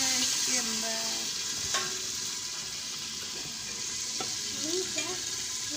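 Onions frying in oil under the lid of an aluminium cooking pot: a steady sizzling hiss that slowly fades, with a couple of light metallic clicks.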